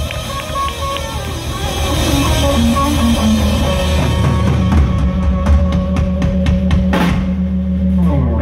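Live rock band playing electric guitar, bass and drum kit. In the second half a run of quick drum hits sounds over a held bass note.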